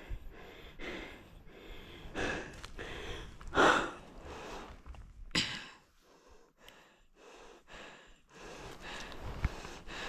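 A person breathing hard in and out from the exertion of a mountain hike, a breath about every second, with two louder exhalations about three and a half and five and a half seconds in.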